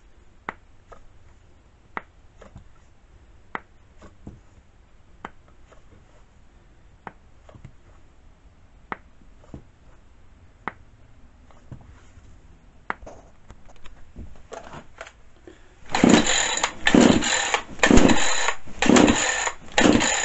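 Craftsman S205 chainsaw being pull-started for its first run on a new carburetor: five hard pulls on the starter cord about a second apart, each a loud rasping whirr as the engine cranks over. Before that, only scattered light clicks and taps.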